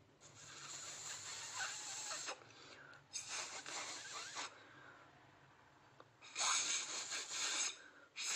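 Breath blown hard through an empty pen barrel onto watery paint drops: three long puffs of rushing air, each a second or two long, with a fourth starting near the end.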